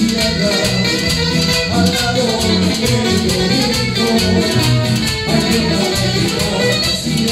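Live band playing an instrumental stretch of Latin American folk dance music: strummed acoustic guitars and bass over a metal güiro scraped in a steady rhythm.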